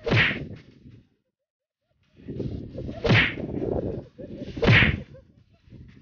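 Three cartoon whip-whoosh sound effects, each a swish falling quickly from high to low: one at the start, one about three seconds in and one near five seconds. A rough, low rumbling noise sits beneath the second and third.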